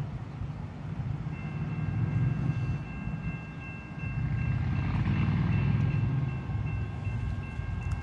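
Approaching train's diesel locomotive horn sounding one long, steady chord, starting about a second and a half in and held to the end, over a low rumble of the oncoming train.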